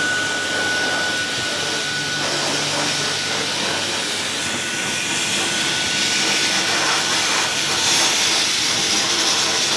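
Steady hiss and rush of compressed air during air blasting, supplied by a screw air compressor. A thin high whistle fades out a little over two seconds in.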